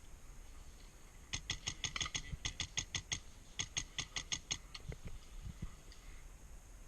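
An HPA airsoft rifle firing two quick strings of shots, about seven sharp clicks a second, with a short break between them.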